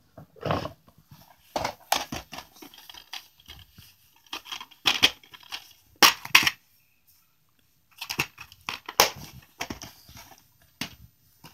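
Plastic DVD cases being handled and set down: a run of sharp clacks, scrapes and crinkling plastic, with a brief quiet gap a little past the middle.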